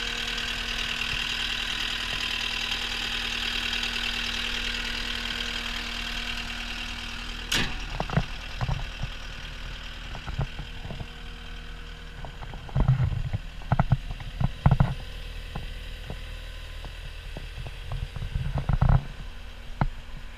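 CAT 236D skid steer loader's diesel engine running steadily with a high hiss on top. After a sharp click about a third of the way in it runs quieter, and a series of heavy clunks and thumps follows, the loudest about two thirds of the way through and again near the end.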